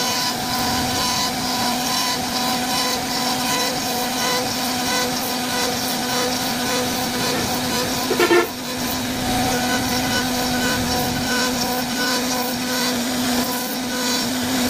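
CNC wood router carving wood: a steady spindle whine over the hiss of the bit cutting, with one brief louder sound a little past halfway.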